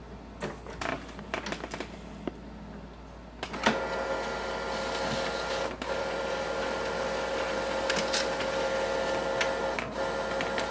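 Epson WorkForce Pro WF-3820 all-in-one printer's automatic document feeder scanning a page: a few clicks and knocks as the mechanism engages, then from about three and a half seconds in a steady mechanical whir with a few clear tones as the page is pulled through the scanner.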